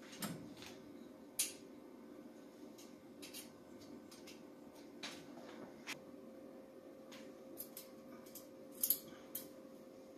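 Scattered light metallic clicks and taps of small engine parts and hand tools being handled on a workbench, the sharpest about a second in and near the end, over a faint steady hum.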